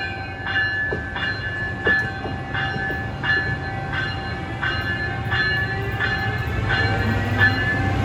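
Locomotive bell ringing steadily at about one and a half strokes a second as an Amtrak ACS-64 electric locomotive rolls slowly into the station, over a low rumble that grows louder near the end as the train draws close.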